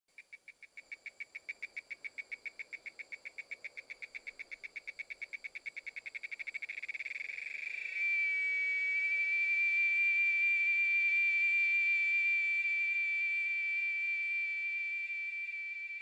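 Periodical cicada (Magicicada) call: a pulsed buzz at about seven pulses a second that speeds up, then about halfway through merges into one steady high whine that slowly fades.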